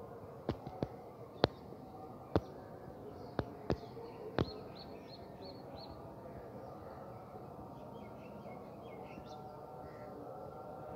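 Outdoor background with small birds chirping in quick short series, and about seven sharp clicks in the first half.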